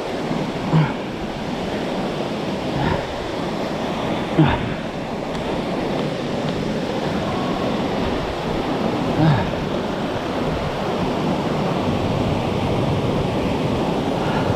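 Steady rush of river water tumbling over rocks, with a few brief close sounds near the microphone about 1, 3, 4.5 and 9 seconds in.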